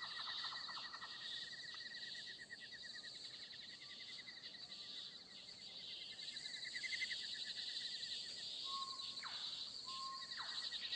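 Faint insect chorus, a steady pulsing trill with a high hiss behind it, joined near the end by a couple of short falling chirps.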